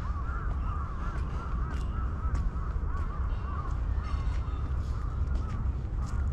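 Crows cawing over and over, many short arching calls overlapping, above a low steady rumble.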